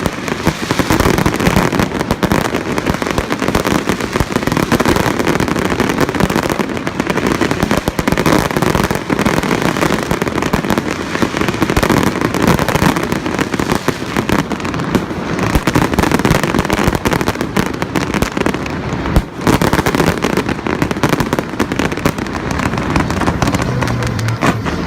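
Fireworks display going off continuously: a dense, rapid crackle of many overlapping bangs and pops with no pause.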